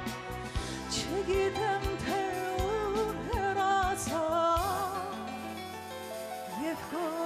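A woman sings an Armenian song with vibrato, backed by a live band with a drum kit keeping the beat.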